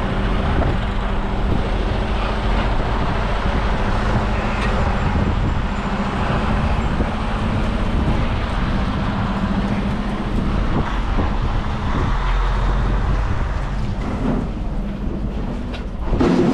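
Steady engine noise from a vehicle or heavy machinery running, with a constant low hum and rumble.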